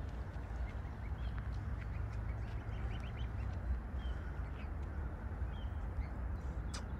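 Greylag geese and goslings calling, with short high peeps scattered throughout, over a steady low rumble.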